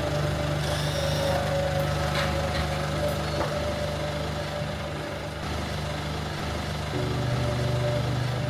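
An engine running steadily at idle, with a low, even hum that shifts slightly in pitch about seven seconds in.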